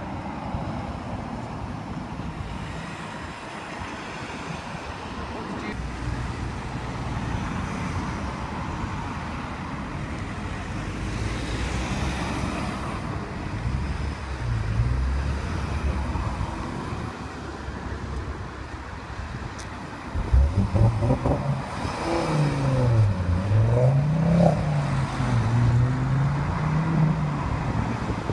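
Road traffic: cars driving past with steady engine and tyre noise. About twenty seconds in, a car engine gets much louder and revs up and down several times, its pitch rising and falling sharply.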